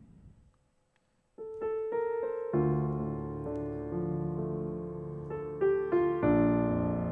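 Piano intro to a song. After a brief near-silent gap, a few single notes are played, then sustained chords with deep bass notes come in about two and a half seconds in, and a new, louder chord is struck near the end.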